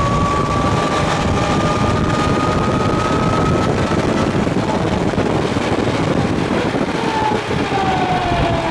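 1913 Bugatti Type 22's 1500 cc inline four-cylinder engine running with the car under way, over a steady rush of noise. A thin whine rises slowly in pitch over the first few seconds, and falling tones come in near the end as the car slows.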